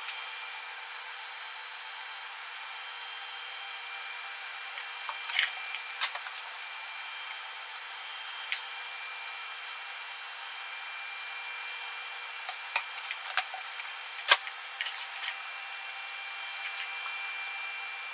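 Hydraulic oil pouring steadily from a plastic quart bottle into the filler neck of a Scag Tiger Cub mower's hydraulic reservoir, refilling it after an oil and filter change. Several sharp clicks of the plastic bottle being handled come about five seconds in and again after about thirteen seconds.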